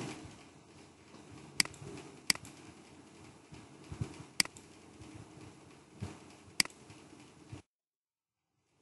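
Computer mouse clicking: four sharp clicks a second or two apart, with a couple of softer taps, over faint room noise. Near the end the sound cuts out to dead silence.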